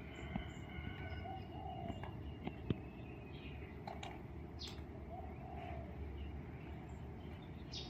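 Birds squabbling: short calls and chirps, with a few sharp clicks or knocks, the loudest about two and a half seconds in, over a steady low rumble.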